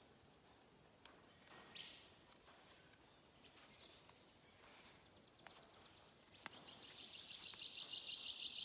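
Faint bird chirps, then a rapid, pulsing high trill that grows steadily louder from about six and a half seconds in. A few faint clicks from tie wire being twisted with pliers.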